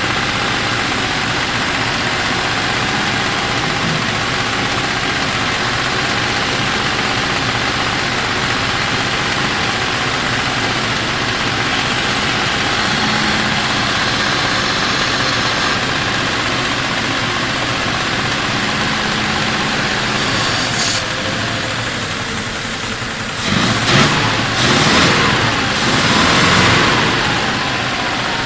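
Triumph Stag's 3.0 V8 engine running steadily at idle, with a few louder surges near the end.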